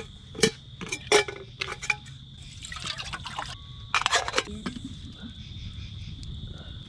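Liquid poured into a small metal camp pot, with sharp metallic clinks and knocks as the pot and its lid are handled. Crickets chirp steadily behind.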